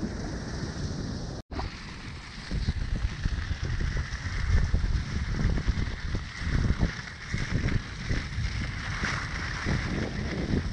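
Wind buffeting an action camera's microphone and skis running over packed snow while skijoring; a gusty low rumble that drops out for an instant about a second and a half in.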